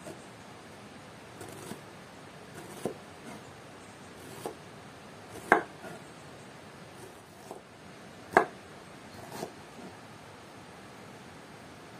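Irregular knocks and clinks of kitchen utensils, spaced a second or more apart, with two louder knocks about five and a half and eight and a half seconds in.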